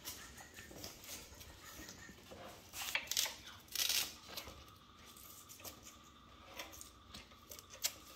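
Faint rustling and light clicks of parts being handled, with two louder rustles about three and four seconds in.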